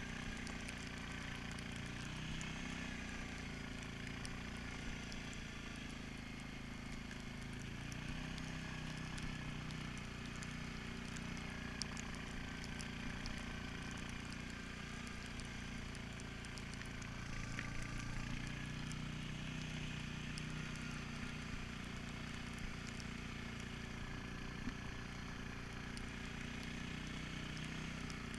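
Suzuki King Quad 750 ATV on rubber track kits, its single-cylinder engine running steadily under way, with the tracks' low rumble and small rattles and clicks from the machine. The engine note swells a little about two-thirds of the way through.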